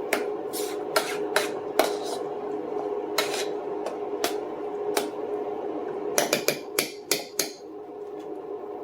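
A spoon stirring mashed potatoes in a pot, scraping and clinking against the pot's side about once a second, with a quick run of clinks about six seconds in, over a steady hum.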